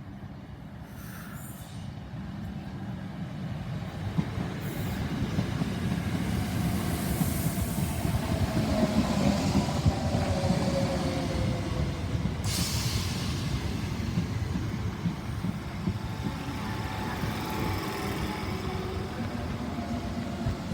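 Electric train pulling into a station platform, growing louder as it comes in. Its motors give a whine that falls in pitch as it slows, and a short hiss comes about halfway through.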